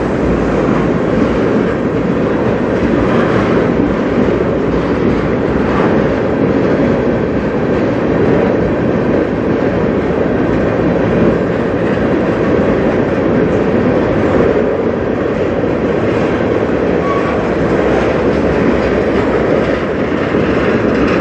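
A freight train of tank cars rolling past at close range: a steady rumble of steel wheels on the rails.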